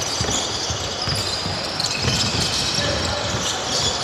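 Basketball bouncing repeatedly on a court during a game, a run of short dull thumps at uneven spacing.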